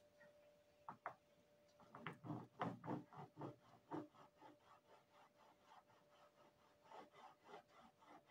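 Small hand-held metal blade scraping the surface of a wax carving block in quick short strokes, about three to four a second, smoothing it for even paint transfer. Two light taps come about a second in, the strokes are loudest a couple of seconds in and then fainter, and they pick up again near the end.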